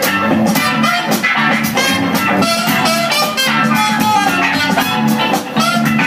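Funk-style dance music with guitar and a steady drum beat.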